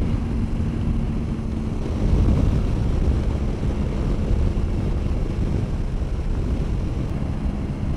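BMW R1200GS flat-twin boxer engine running at road speed, mixed with wind and road rush on the on-bike microphone. The engine note shifts about two seconds in.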